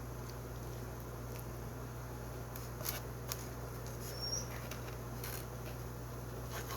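Someone eating: a few soft, sharp clicks and crinkles with a brief high squeak about four seconds in, over a steady low electrical hum.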